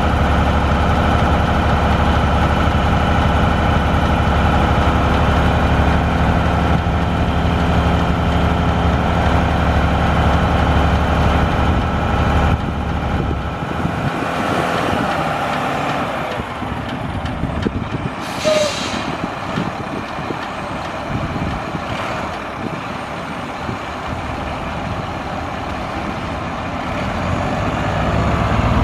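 Mack MP7 10.8-litre six-cylinder diesel of a Mack GU713 dump truck running steadily with a deep rumble. About 13 s in the engine note drops and the rumble fades. About 18 s in there is a short, sharp hiss of released air, typical of the truck's air brakes.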